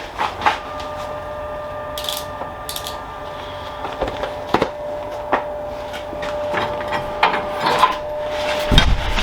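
Steel sheet pieces being handled and set down on a workbench, with scattered metallic knocks and short scrapes over a steady hum, and a heavier knock near the end.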